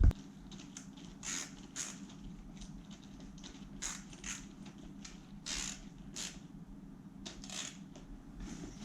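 Short, scattered scrapes and rustles of the luggage handle's parts being handled and fitted back together, over a steady low hum.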